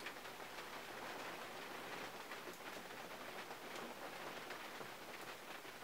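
Rain falling on a 1951 Mercury, heard from inside the closed cabin: a soft, steady patter with scattered single drops ticking on the body and glass.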